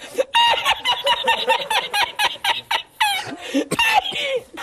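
A man laughing hard in a high-pitched, squeaky, cackling way: a rapid run of short breathless laugh pulses, then a few longer falling whoops in the last second and a half.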